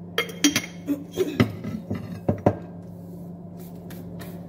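Kitchenware clinking: a quick run of sharp, ringing clinks of a utensil and dishes over the first two and a half seconds, then only a steady low hum.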